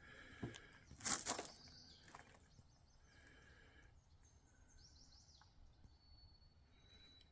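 A click, then a brief scraping rattle about a second in, from handling the .300 Win Mag rifle between shots. Faint bird chirps follow in the quiet.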